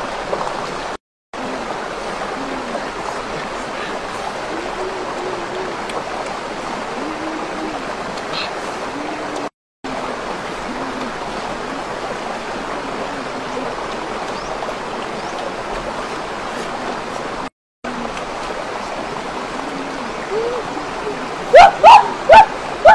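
Shallow rocky stream running steadily, an even rushing of water. Near the end a few loud, short sounds cut in over it.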